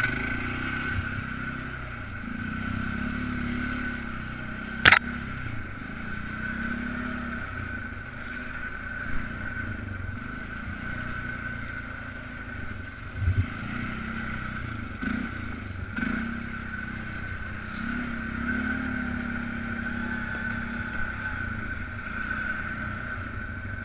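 Polaris Sportsman 500 ATV's single-cylinder four-stroke engine running at low trail speed, the throttle easing on and off, with a steady high whine over it. A single sharp knock about five seconds in is the loudest thing, with a lighter thump a little past the middle.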